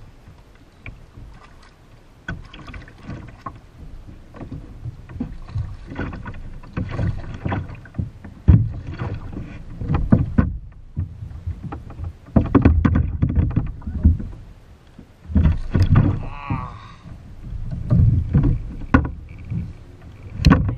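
Irregular bumping, knocking and water noise on a kayak, coming in uneven bursts that grow louder and busier through the second half, with a few sharp knocks.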